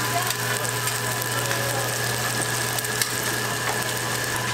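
Seafood and green onion pancakes sizzling in oil on a flat griddle, a steady hiss with scattered small crackles, over a steady low hum.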